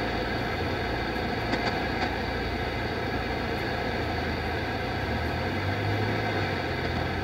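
Eton Elite 750 shortwave receiver's speaker giving steady static and band noise while it is tuned through empty frequencies in single-sideband mode, with a few faint ticks about a second and a half in.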